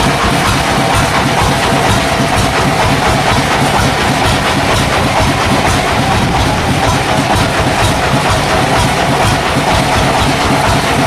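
Sawmill saw running through a log: a loud, steady mechanical noise with a constant whine and a faint regular clatter.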